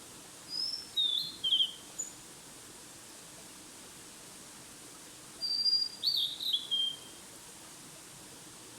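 A small songbird singing two short phrases of quick, high, falling notes, the second about five seconds after the first, over a steady background hiss.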